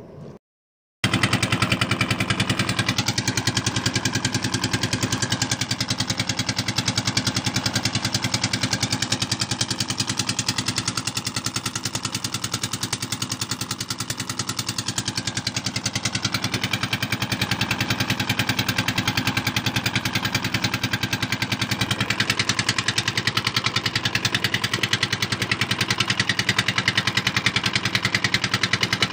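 Small wooden boat's engine running steadily while underway, a rapid, even pulsing at a near-constant pitch. It cuts in abruptly about a second in, after a brief silence.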